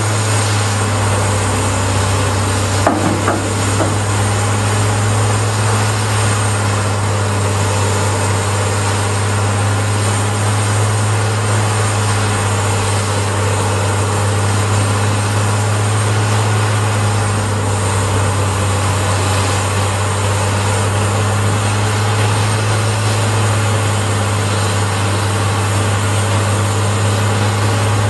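Peterson 6700B horizontal grinder running steadily while feeding and grinding mulch-like woody material: a loud, constant engine-and-rotor drone with a deep hum, and a short cluster of knocks about three seconds in.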